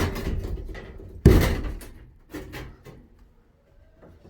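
Knocking and handling noise, then one heavy thump about a second in that dies away, followed by a couple of fainter knocks.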